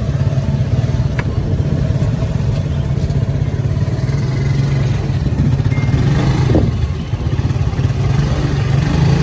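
Motorcycle engine pulling a remorque tuk-tuk, running steadily under road noise, heard from the passenger carriage. About six and a half seconds in, a brief sound rises and falls in pitch.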